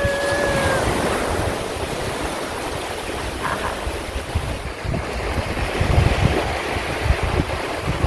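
Small waves breaking and washing in over a shallow sandy beach on the incoming tide. Wind buffets the microphone with low thumps in the second half.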